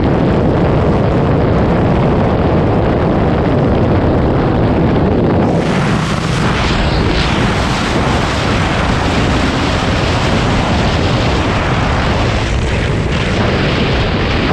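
Heavy wind rumble buffeting the microphone of a motorcycle ridden at high speed, with the engine running underneath. The rush gets brighter about five and a half seconds in.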